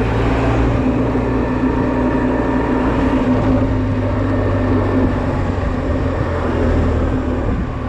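Honda Silver Wing maxi-scooter engine running steadily amid road traffic, with a steady low hum and a wash of noise over it.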